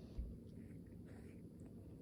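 Faint soft, wet licking of a cat grooming another cat's fur, with one dull low thump right at the start.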